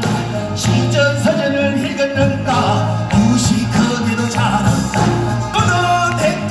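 A male pansori singer sings with strong vibrato into a microphone, accompanied by a Korean traditional orchestra of plucked zithers and percussion.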